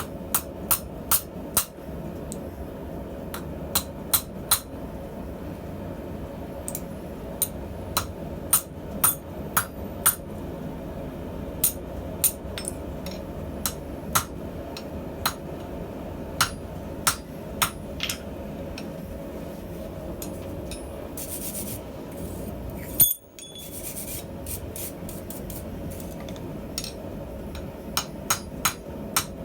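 Blacksmith's hammer striking steel on an anvil in irregular single blows and short runs of two or three, over a steady low rushing noise.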